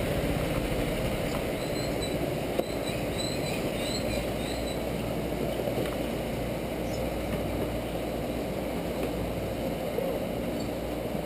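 Steady hum of go-karts running on an indoor kart track, with a few faint high chirps between about one and five seconds in.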